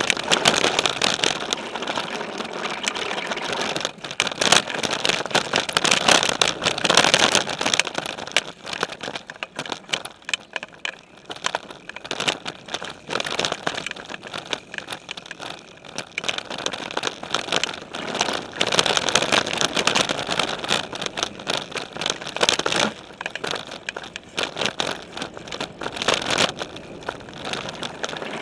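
Specialized Stumpjumper mountain bike riding over dirt trail and dry leaves, heard from its frame: the tyres roll and crunch, and the bike clatters and rattles with many short knocks over bumps. The noise rises and falls with the terrain, easing for a few seconds about a third of the way in and again near the end.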